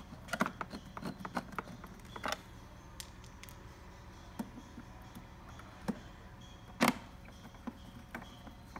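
Small, irregular clicks and ticks of a Phillips screwdriver driving a long screw up into the QBC STAR hematology analyzer's plastic base. The clicks come thick in the first couple of seconds and then sparse, with one sharper click about seven seconds in.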